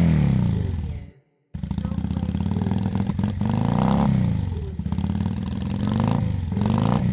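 Kawasaki VN800 Classic V-twin motorcycle engine revving: one rev dies away and cuts off about a second in, then after a brief silence the engine runs again and is revved up and let fall three times.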